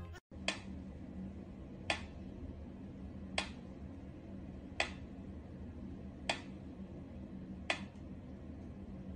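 Mechanical pendulum metronome ticking slowly, one sharp tick about every second and a half, over a faint steady hum.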